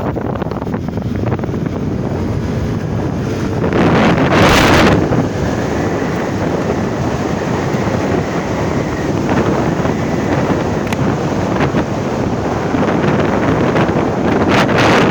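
Wind buffeting the microphone: a loud, steady rushing rumble, with a stronger gust about four seconds in.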